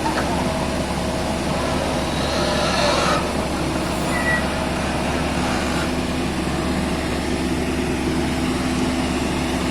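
An excavator's diesel engine running steadily with an even, unbroken hum while it works.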